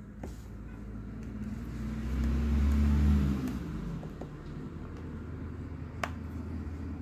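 A low motor-vehicle engine rumble that swells over a couple of seconds, peaks and fades away, as of a vehicle passing by, over a steady low hum. A single sharp click about six seconds in.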